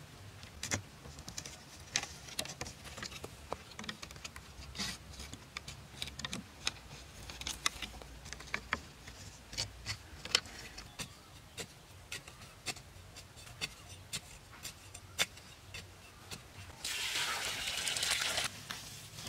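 Scattered sharp clicks and knocks of split bamboo strips being handled and tied onto a curved bamboo frame. Near the end, about a second and a half of water pouring from a container into a hole in the soil, the loudest sound.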